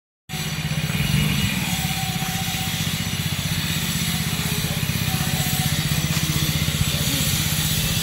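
An engine running steadily, with a fast, even low pulsing.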